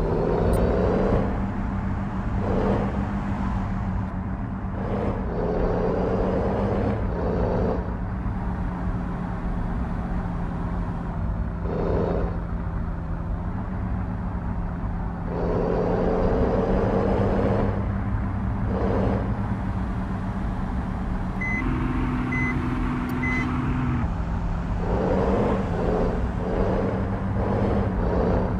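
Heavy truck's diesel engine running steadily, its speed shifting up and down, with traffic swelling past. Three short high beeps sound a little past the middle.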